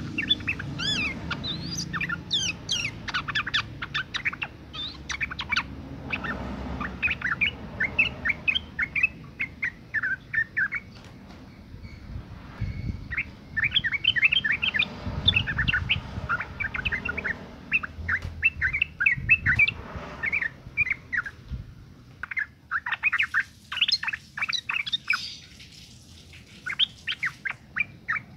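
Female yellow-vented bulbul in breeding condition giving its calls: rapid runs of short, bubbling chirps in several bouts, with brief lulls about a third and three quarters of the way through.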